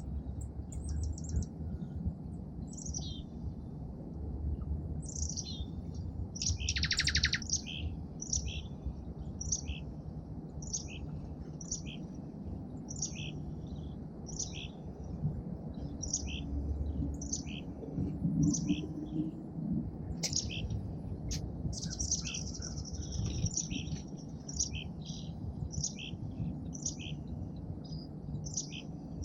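Small songbirds chirping at a feeder: a steady series of short, high chirps about once a second, with a brief buzzy call about seven seconds in and busier chatter a little past the middle. A steady low rumble runs underneath.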